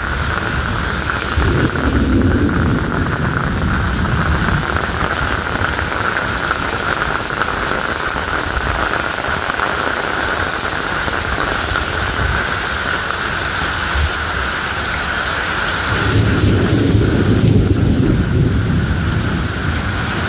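Heavy rain pouring steadily in a thunderstorm, with deep rumbling in the first few seconds and again from about four seconds before the end.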